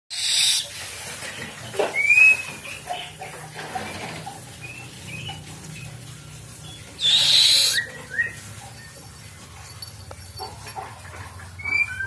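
Buffy fish owl chick hissing in two loud bursts, one at the very start and one about seven seconds in, with short high chirps scattered between.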